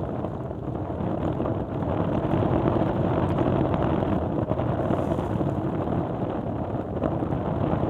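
Steady wind rumbling on the microphone across an open tidal flat.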